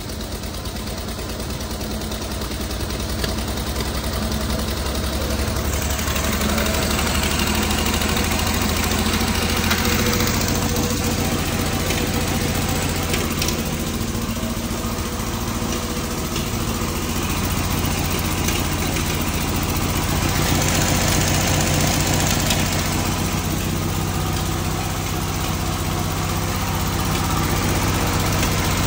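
Fiat 126p BIS two-cylinder engine running on choke just after a first start, idling a little unevenly and slowly getting louder. Something in it knocks and taps, which the owner cannot yet place.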